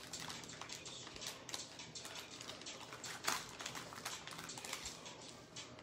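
Plastic cello-wrapped trading card packs crinkling and tapping faintly as they are handled and set down, with a sharper click a little past three seconds in.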